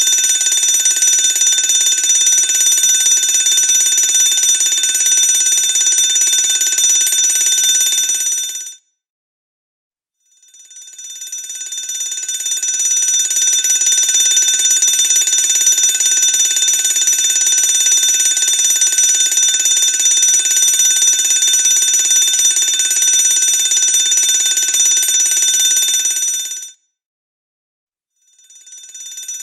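Electric fire alarm bell ringing continuously. It cuts off about nine seconds in, stays silent for about a second and a half, fades back up and rings for about sixteen seconds, cuts off again, and starts once more just before the end.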